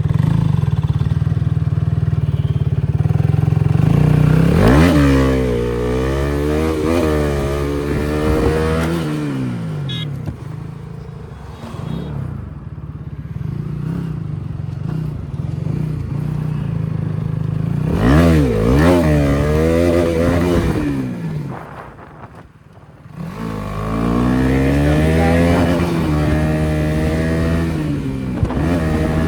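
Motorcycle engine revved hard three times in wheelie attempts, the pitch climbing and falling with each burst between a steady running note. The clutch plate is burnt, which the rider blames for the front not popping up well.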